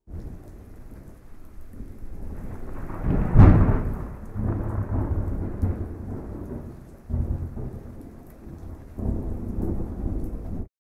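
Thunder rumbling over steady rain, loudest about three and a half seconds in, with further swells near seven and nine seconds; the sound starts and cuts off abruptly.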